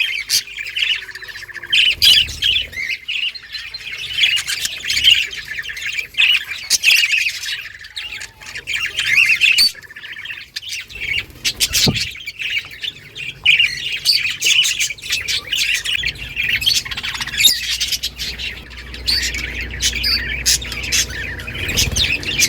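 A colony of budgerigars chirping and chattering continuously, many birds calling over one another, with a single sharp click about twelve seconds in.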